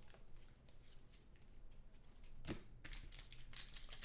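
Faint rustling of trading cards being slid and handled, with one brief sharper rustle about two and a half seconds in.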